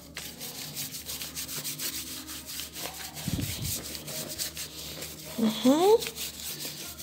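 Paintbrush scrubbing acrylic paint onto paper over a newspaper collage, a run of quick scratchy rubbing strokes. There is a soft thud about three seconds in, and a brief rising voice-like sound about five and a half seconds in.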